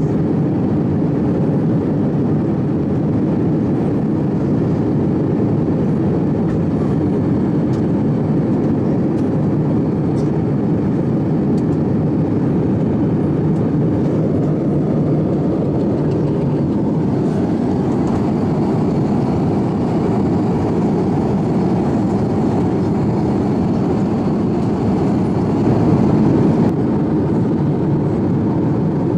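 Airbus A350-900 cabin noise while taxiing: a steady low rumble of its Rolls-Royce Trent XWB engines at low thrust and the airframe rolling, heard from inside at a window seat, with a faint steady high whine above it.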